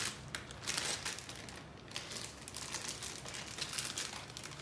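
Crinkling of plastic packets of toy building bricks being handled and pulled at to get them open, in irregular rustles.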